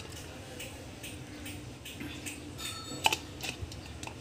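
A few light metallic clinks of a metal spoon as ghee is spooned into a nonstick frying pan, the sharpest and loudest about three seconds in, with a short ring after it.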